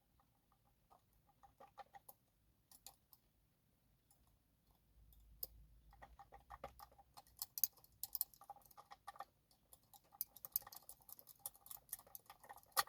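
Faint small metallic clicks and ticks of lock-picking tools working in an Avocet ABS dimple lock cylinder while its magnetic element is set with a magnetic pick. The clicks are sparse at first and become busier about halfway through.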